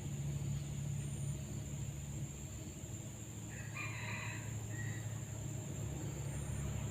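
A rooster crows once, faintly, a little under halfway through, over a steady low hum.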